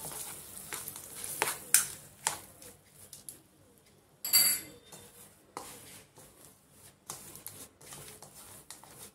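Mashed-potato stuffing being mixed by hand in a ceramic bowl: irregular soft rustling with scattered light taps and scrapes of fingers against the bowl, a louder burst about four seconds in.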